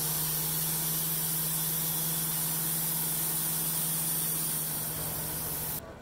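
Wood-Mizer LT15 Wide band sawmill cutting through an olive log: a steady hiss of the band blade in the wood over the even drone of the mill's motor. It stops abruptly near the end.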